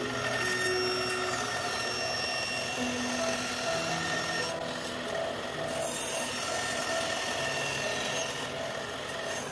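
Bandsaw running steadily and cutting through plywood as the board is fed into the blade.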